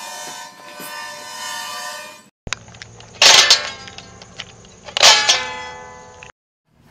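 A baby elephant trumpets a held, pitched call. After a cut, a pink toy electric guitar sounds two loud electronic chords, about two seconds apart, as a piglet steps on its buttons, each chord ringing down.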